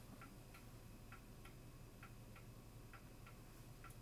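Faint, regular ticking: short ticks in pairs, a pair about every second.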